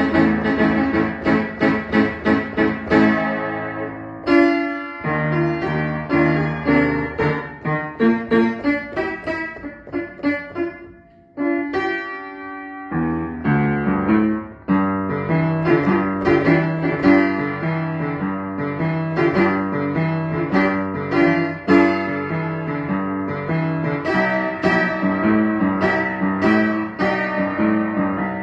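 Upright piano played by hand: chords and melody notes, with a brief pause about eleven seconds in before steady chordal playing picks up again.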